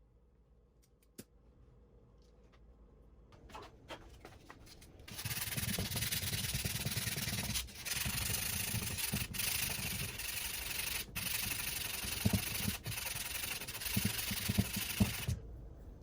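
A few light taps and handling noises, then continuous abrasive rubbing like sanding, with about four brief breaks in the strokes, stopping shortly before the end.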